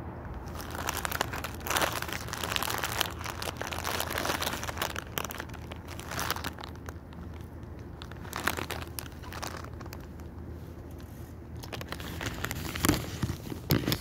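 Clear plastic bag crinkling in irregular bursts as a bread roll is handled and eaten from it, over a steady low hum.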